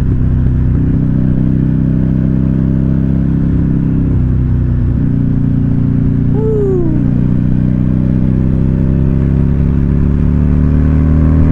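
Buell Lightning's 1203cc air-cooled V-twin running through its dual exhaust pipes while riding. The exhaust note is loud and steady, and its pitch rises slowly toward the end as the bike speeds up.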